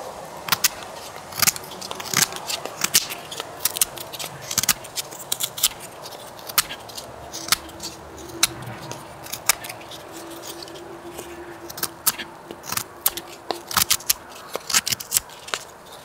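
Ruike LD43 multi-tool's folding knife blade whittling a thin wooden stick to a point: a quick, irregular run of sharp snicks as each stroke shaves off the wood.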